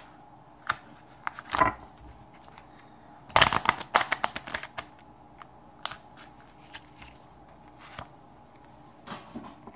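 A tarot deck being shuffled by hand: short runs of rapid card-on-card flicking, the longest about three and a half seconds in and lasting about a second, between scattered light clicks and taps of cards.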